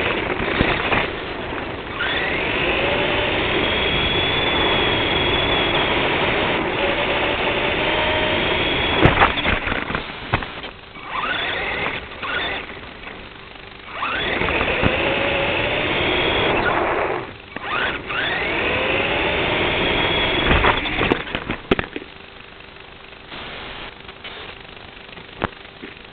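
Radio-controlled car's motor whining up in pitch as it accelerates, in three long bursts of throttle with short let-offs between, over a steady rushing noise from the running car; it goes quieter in the last few seconds.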